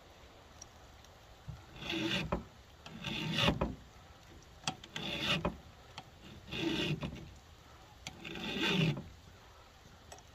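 Flat file rasping across a chainsaw chain's raker (depth gauge): five slow strokes about a second and a half apart. The file is taking down a raker that sits far too high.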